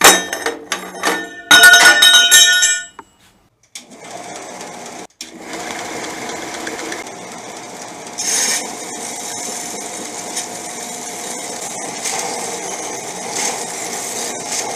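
Cut pieces of steel square tubing clattering and clinking together as they are handled, with a ringing metallic sound. Then, about four seconds in, a bench belt sander starts running steadily as a small square of the tubing is held against the moving belt, with a brief louder stretch near the middle.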